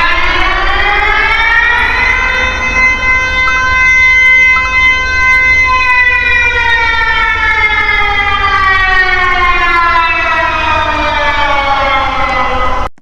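A siren winding up over about two seconds, holding a steady tone for a few seconds, then slowly winding down in pitch over a low rumble. It cuts off suddenly near the end.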